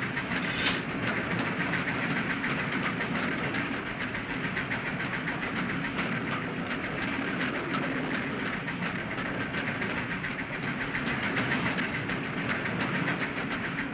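Steam locomotive running at speed, heard from its cab: a steady rumble and rattle with a fast, continuous clatter of wheels and running gear.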